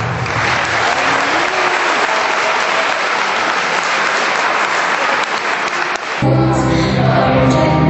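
Audience clapping steadily after a dance routine ends; about six seconds in, music with a heavy bass line starts up.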